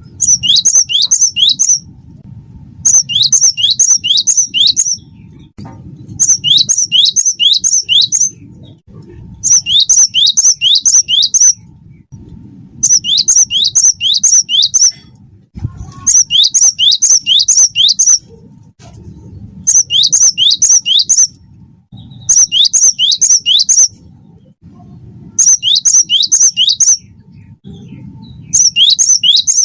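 A cinereous tit (gelatik batu) sings its loud, ringing song: phrases of five or six sharp, quickly repeated high notes, about 1.5 to 2 seconds each, coming roughly every three seconds with short pauses between.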